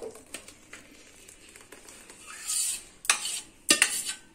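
A steel spoon scraping thick custard out of a stainless steel pan into a bowl. Two sharp clinks of the spoon against the pan come near the end.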